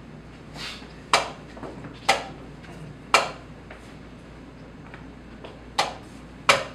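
Blitz chess moves: wooden chess pieces knocked down on a wooden board and the chess clock pressed, about five sharp clicks at an uneven pace with a softer one at the start.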